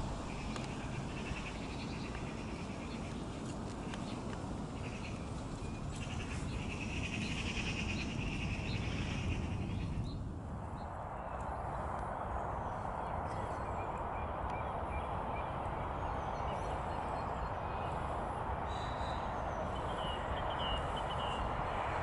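Outdoor ambience: faint bird calls over a steady rushing noise. About halfway through, the noise changes to a fuller, even hiss.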